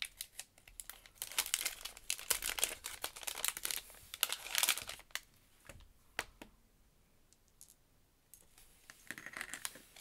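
Packaging crinkling and rustling as it is handled and opened by hand, in a dense crackly stretch from about one to five seconds in, then a few separate clicks, a quiet spell, and more rustling near the end.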